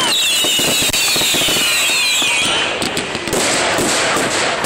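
Fireworks going off: several high whistling fireworks, falling slightly in pitch, over dense crackling. The whistles fade about halfway through, leaving rapid crackles and pops.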